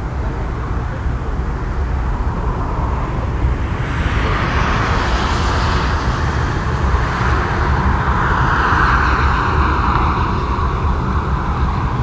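Airbus A319-100 climbing away under take-off thrust: a distant jet engine rush over a steady low rumble, swelling about four seconds in and staying loud.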